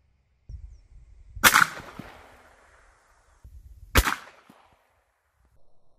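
Two sharp cracks about two and a half seconds apart, each trailing off briefly: a 9mm Luger FMJ cartridge going off in the open, outside a gun barrel.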